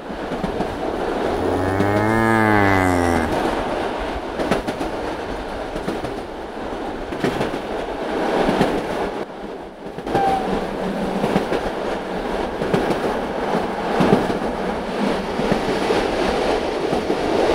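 A cow moos once about two seconds in, a single call that rises then falls in pitch, over the steady rumble and clatter of a running train.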